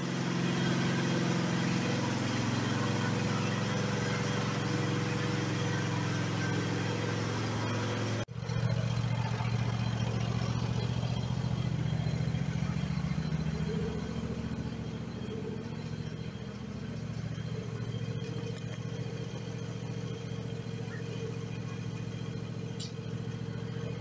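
Kohler KT725 V-twin engine of a Cub Cadet riding mower running at a steady speed, with a brief break about eight seconds in. It is fainter in the second half.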